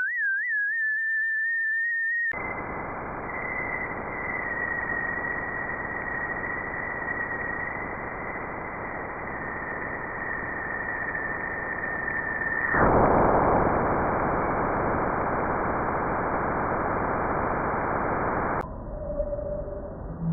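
Sonified space-instrument recordings: a steady high whistling tone, then a hiss with a steady high tone riding over it, then a louder plain static-like hiss. Near the end it changes to a duller, quieter hiss with faint scattered tones.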